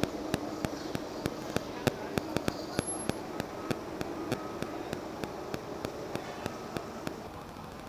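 Low engine hum of a Mercedes-Benz Sprinter ambulance moving close by, under a regular sharp ticking of about three ticks a second with short beeps between some ticks; both fade about seven seconds in.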